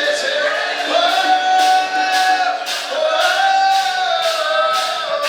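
Music: a voice singing long held notes over a band with a steady beat.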